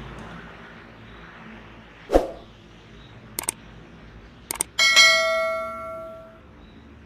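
A thump, then two pairs of sharp clicks, then a single loud bell-like ring about five seconds in that fades away over about a second and a half.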